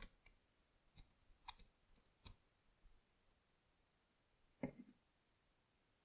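Faint clicks of stiff house wire and a plastic wire nut being handled while splicing the switch's black lead to the black house wire: about half a dozen small clicks in the first two and a half seconds, then one duller knock later on.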